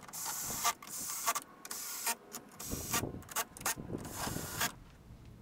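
Cordless drill/driver driving grill bolts, its motor whirring in a series of short stop-start bursts, then one longer run that stops near the end.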